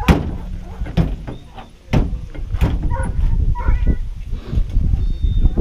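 Short animal cries over a low rumble, with several sharp knocks; the loudest knocks come near the start and about two seconds in.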